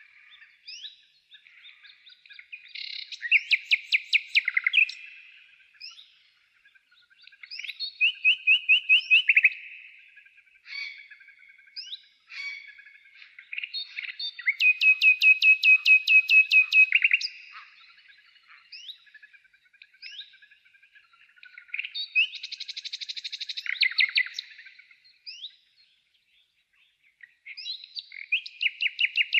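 A songbird singing: phrases of fast repeated high notes come every five to six seconds, with short scattered chirps in between.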